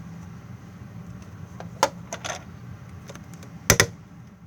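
Sharp plastic clicks and knocks from handling and seating a Deutsch 6-pin connector, a couple about halfway through and a louder quick double click near the end.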